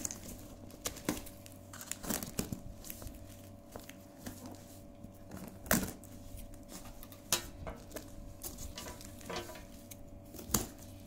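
Scissors cutting the packing tape on a cardboard box, then the taped flaps being pulled open: scattered sharp clicks and knocks among cardboard and tape rustling.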